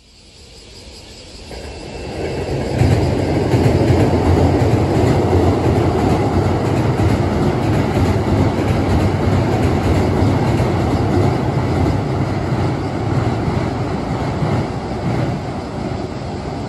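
A Hankyu 9000 series electric train passing at speed over a steel river bridge: a steady rumble of wheels on rail builds over the first few seconds, holds, then slowly fades as the train moves away.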